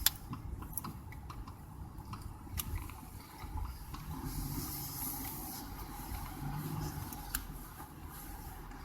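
Steady low road and engine noise heard inside a car cabin while driving, with a few faint ticks and a brief hiss about halfway through.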